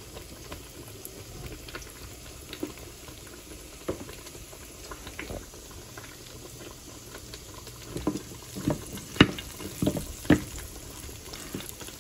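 Cumin seeds, cardamom and cinnamon tempering in hot oil in a frying pan: a low sizzle with scattered small crackles, and a cluster of sharper, louder clicks about eight to ten seconds in.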